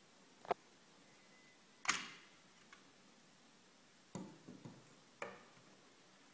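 A scale model car being handled, giving a few sharp clicks and knocks: the loudest about two seconds in, then a short cluster of taps about four seconds in.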